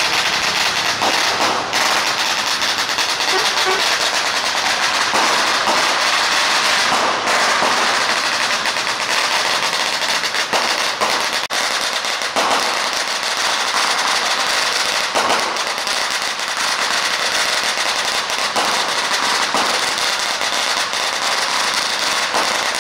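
Strings of firecrackers going off in a continuous dense crackle, with a few sharper bangs scattered through it.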